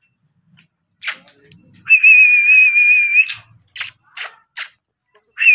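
A person whistling one long, slightly wavering note, then three sharp clicks about half a second apart, then a second, shorter whistle near the end.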